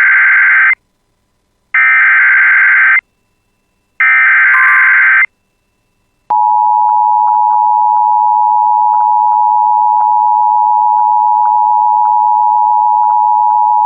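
Emergency Alert System tones: three short buzzy SAME digital header bursts, each about a second long with gaps between, then about six seconds in the steady two-tone EAS attention signal starts and holds. The coded bursts carry the alert's details, and the attention signal announces that an emergency message, here a severe thunderstorm warning, follows.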